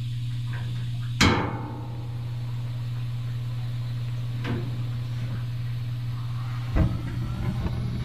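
Empire RH-35 vented natural gas heater being lit. A sharp click that rings briefly comes about a second in and a lighter click midway, then a low thump near the end as the main burner catches, over a steady low hum.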